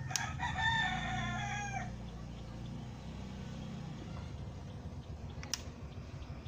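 A wall switch clicks, then a rooster crows once, a call of about a second and a half. Another switch click comes about five and a half seconds in, over a steady low hum.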